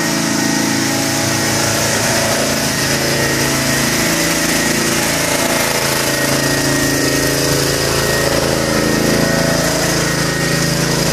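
Small portable generator engine running steadily at a constant speed, loud and close.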